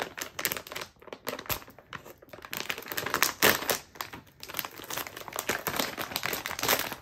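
Shiny plastic blind-bag packaging crinkling and tearing as it is ripped open by hand: a rapid, irregular run of crackles that grows busier after the first couple of seconds.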